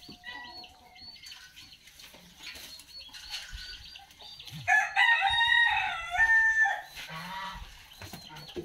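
A rooster crowing once, loudly, starting about five seconds in and lasting about two seconds, with fainter chicken clucks earlier.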